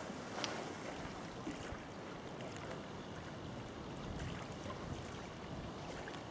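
Steady outdoor hiss of wind and water, with a faint click about half a second in.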